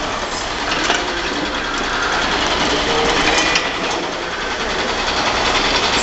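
Hydraulic manure scraper running: a steady mechanical whirr and rattle with a few scattered short clicks.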